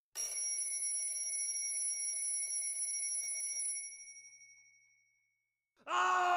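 A bright, bell-like electronic chime holds steady, then fades away over a second or two. Near the end a second, lower synthesized tone swells in with a slight upward bend in pitch.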